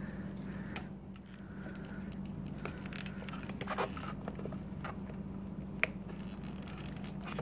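Scissors being worked in among a scooter's wiring to snip a zip tie: scattered small clicks and scrapes of the blades against plastic ties and wires, over a steady low hum.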